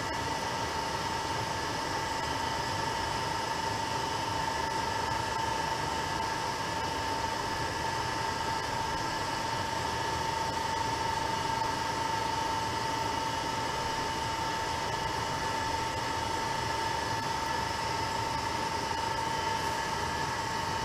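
Steady machine hum with a constant high-pitched whine.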